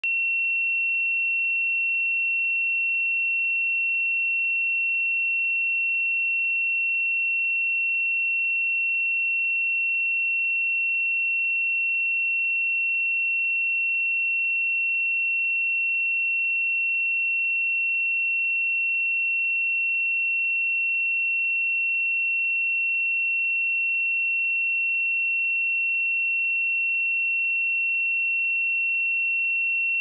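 A pure 2718 Hz sine-wave test tone, one steady high-pitched note held at a constant level, used to check speakers or headphones.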